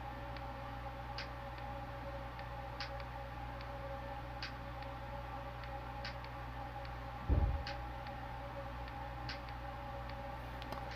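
Faint music leaking from true wireless earbuds worn in the ears, heard mainly as soft percussive ticks about every second and a half over a steady low hum. There is a single dull thump a little after seven seconds in.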